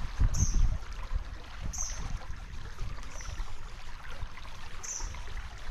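Running stream water with a low rumble and thumps from the body-worn camera being moved about, heaviest in the first second, and a few short faint high chirps.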